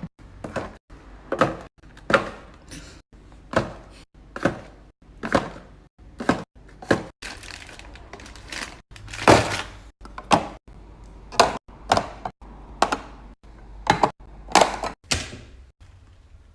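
A string of knocks and clunks, one or two a second at an uneven pace, as containers and groceries are set down and arranged on fridge shelves. The sound drops out briefly between some of them.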